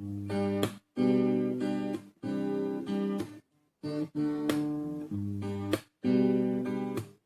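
Acoustic guitar strummed in short chords, each one stopped abruptly with a brief gap before the next.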